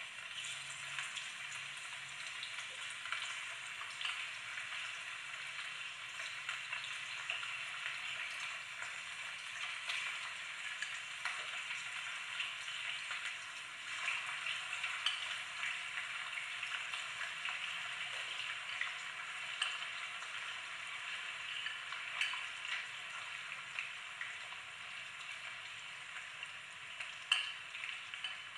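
Chicken wings shallow-frying in hot oil in a pan: a steady sizzle with frequent small crackles and pops, and one sharper click near the end.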